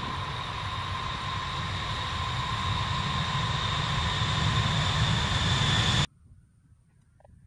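B-52H Stratofortress's eight turbofan engines at takeoff power on the takeoff roll: a low rumble with steady high-pitched whines, slowly growing louder, then cut off suddenly about six seconds in.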